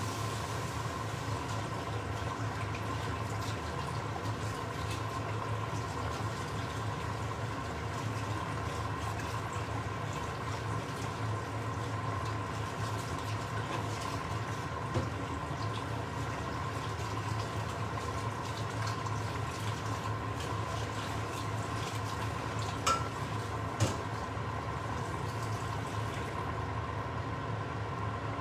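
Steady water noise over a steady hum, with two sharp clinks a few seconds before the end.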